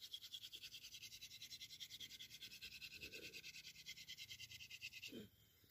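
Wooden hand-drill spindle twirled between the palms, grinding against the hearth board in a fast, even rasping rhythm of about seven strokes a second; it stops suddenly near the end.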